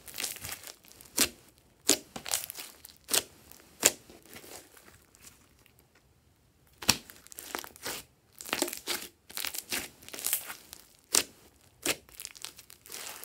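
Glossy slime being squeezed, pressed and stretched by hand: irregular sticky squelches and sharp popping clicks, in runs, with a quieter spell about halfway through.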